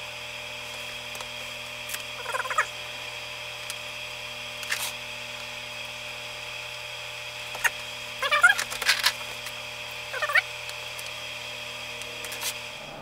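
Wooden clothespins being sprung open and clipped onto glued thin wooden model parts: short squeaks and clicks, the busiest cluster about eight to nine seconds in. A steady high-pitched hum runs underneath and cuts out just before the end.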